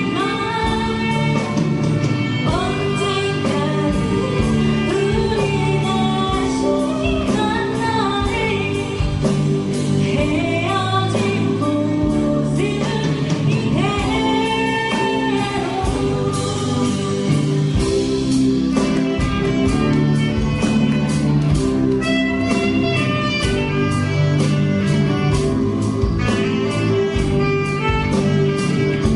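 A live band playing a song with a singer, the vocal melody carried over sustained instruments and a steady drum beat.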